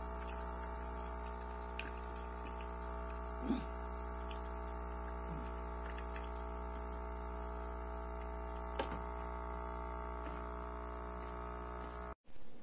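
Nescafé Dolce Gusto capsule machine's water pump humming steadily while pushing hot water out, with only a little water coming through. A couple of faint knocks sound along the way, and the hum cuts off suddenly near the end.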